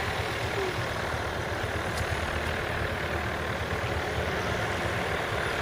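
Light aircraft engine running steadily at low power, a continuous even hum with no change in pitch.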